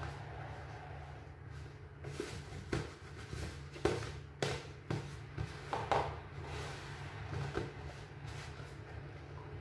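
Wooden spoon scraping and knocking irregularly against a plastic mixing bowl while stirring flour and water into bread dough, over a steady low hum.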